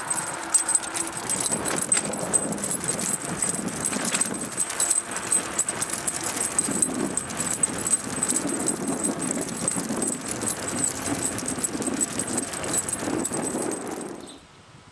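Two Siberian huskies running beside a bicycle: the metal rings and clips of their harnesses and leash lines jingling and rattling, with their paws pattering. The sound cuts off suddenly near the end.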